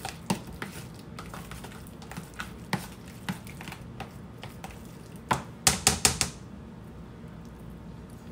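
Metal spoon clicking and scraping against a plastic food container while stirring guacamole: light, irregular clicks, then a quick run of louder clacks a little past five seconds in, after which the stirring stops.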